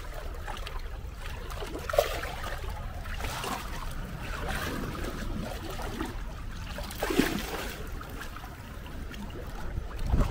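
Shallow seawater sloshing and splashing around legs as someone wades through it, with two sharper splashes about two and seven seconds in.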